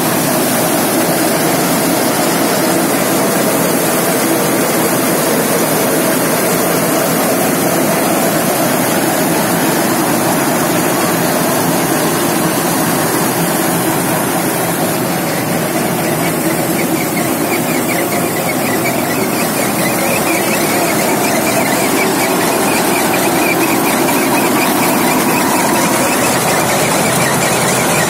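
Tractor-driven bajra (pearl millet) thresher running steadily under load, with its threshing drum, belts and pulleys making a continuous loud mechanical din over the tractor engine. A higher whine joins in a little over halfway through.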